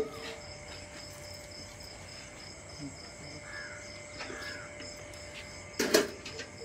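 A steel milk bucket is set down with a clank on the platform of an electronic weighing scale about six seconds in. Before that there is a quiet background with a steady high chirping and two faint calls in the middle.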